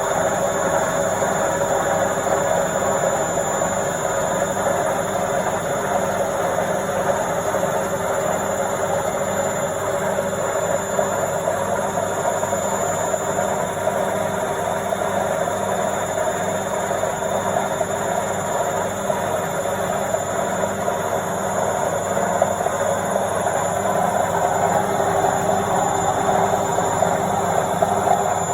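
Washing machine on its spin cycle: a steady whirring hum with a few held tones, growing slightly louder near the end.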